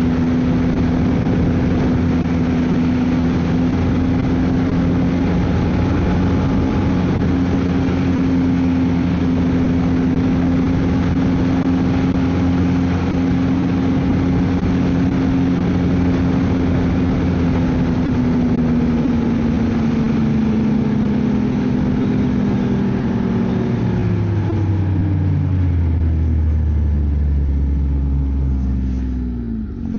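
Ski-Doo snowmobile engine running at a steady trail speed. About two-thirds of the way through, its pitch falls steadily as the sled slows down.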